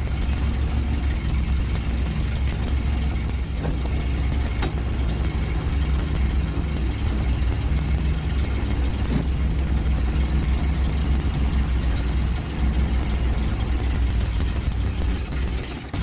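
Truck engine idling steadily, a low, even drone, on a crane truck whose crane is being worked. A few faint knocks sound over it.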